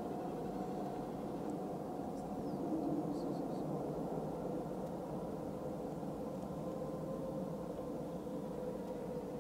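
Distant jet engines of an Ilyushin Il-76TD-90VD freighter, PS-90A turbofans, running at taxi power: a steady rushing hum with a faint steady whine over it.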